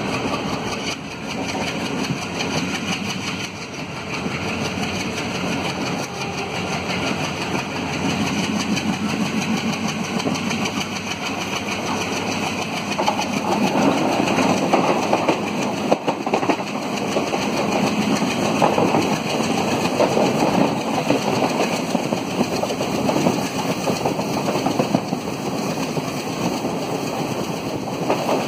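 Diesel locomotive engine chugging steadily under power, with the rumble of the moving train. It grows louder about halfway through, as a locomotive runs close by.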